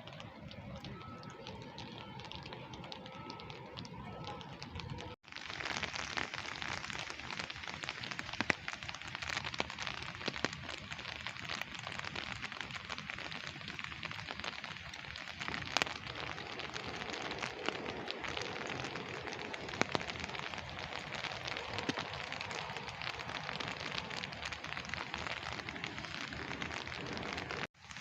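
Steady rain falling, with scattered sharp drips and taps, lighter at first and then suddenly louder and denser from about five seconds in.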